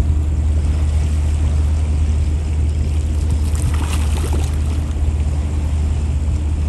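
Cargo ship's engines running with a steady low drone as the ship comes in to the pier.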